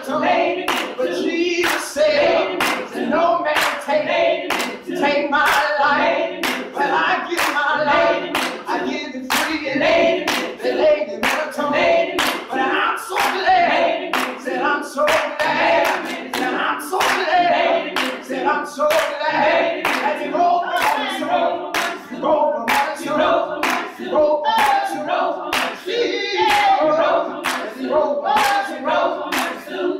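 A small mixed group of men and women singing a gospel song together, clapping their hands steadily on the beat, about two claps a second.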